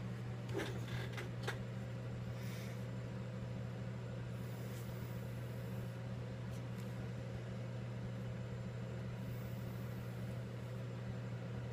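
Steady low mechanical hum, with a few light clicks about half a second to a second and a half in as small parts are handled on the bench.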